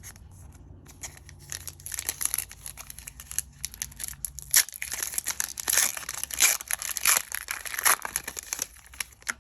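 Foil wrapper of a Pokémon XY Evolutions booster pack being torn open and crinkled: a dense run of crackling rustles that grows louder in the second half.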